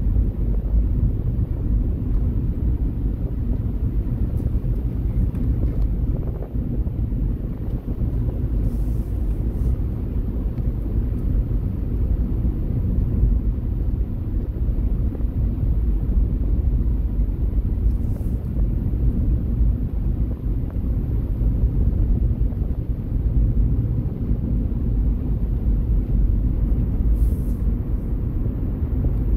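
Steady low rumble of a car driving on a paved road, engine and tyre noise heard from inside the cabin.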